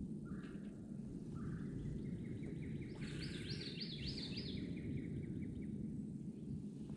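A songbird singing a run of quick repeated notes, about four a second, for a few seconds before stopping, over a steady low background noise.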